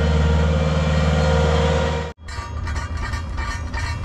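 A heavy machine's engine running steadily. About two seconds in it cuts off abruptly and is replaced by rapid, irregular clattering and knocking from work on the site.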